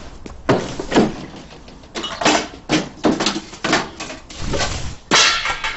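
Cupboard doors and drawers being opened, shut and rummaged through, a quick run of knocks and clatters with a longer rattle near the end.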